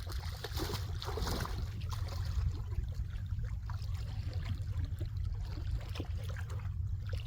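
Lake water splashing and lapping in the shallows, with many small irregular splashes over a steady low rumble.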